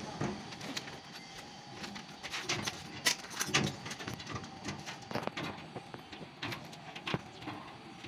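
Irregular clicks and knocks of a wall-mounted electrical switch enclosure's door being pushed shut and its latch worked by hand. The loudest knocks come about three seconds in.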